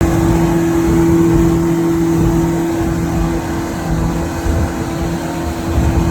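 Motorboat's outboard engine running at a steady pitch while underway, with a rushing noise over it.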